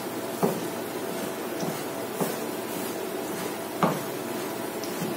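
A large kitchen knife chopping roasted peppers on a wooden cutting board: a few irregular knocks of the blade on the board, over a steady hiss.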